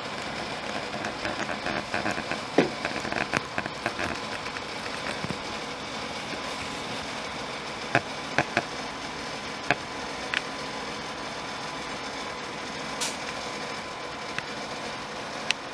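Small wooden catapult parts being handled: scattered light clicks and taps, a cluster about two seconds in and another around eight to ten seconds in, over a steady background drone.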